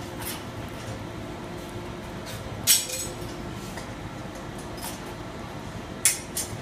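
Sharp metal-on-metal clinks of foundry tools being handled during an iron pour: one about three seconds in and two more close together near the end, over a steady hum.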